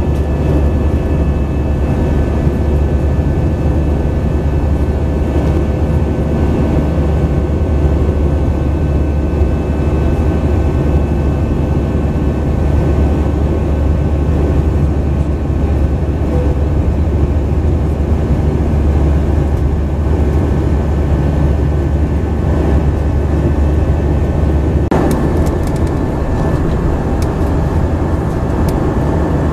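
Airbus A319 jet engines and airflow heard from inside the cabin while climbing after take-off: a steady deep rumble with a few steady whining tones from the engines. A short knock about 25 seconds in and a few faint clicks near the end.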